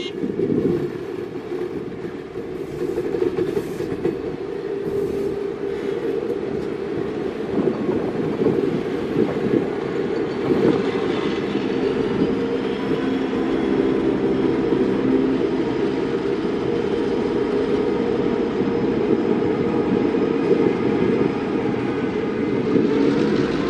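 Diesel-hauled container freight train passing close by: a steady heavy rumble of wheels on rail with some clicking over rail joints, and a faint high-pitched wheel squeal through the middle.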